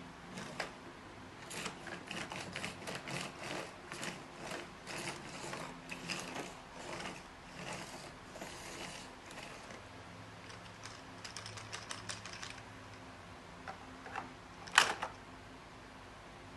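Irregular clicks and taps of small hard parts being handled, with a faint steady hum underneath. A quick run of ticks comes about eleven seconds in, and one much louder knock near the end.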